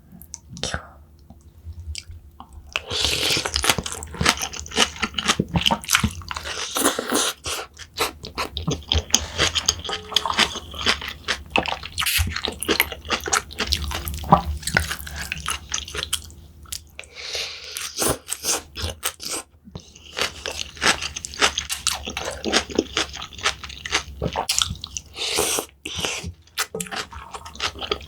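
Close-miked crunchy chewing of food in the mouth: dense crackly bites that start a few seconds in and go on in two long spells, with a short lull a little past the middle.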